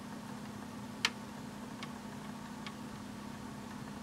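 Plastic (acetate) eyeglass frame handled and turned in the fingers: one sharp click about a second in and two fainter ticks after, over a steady low hum.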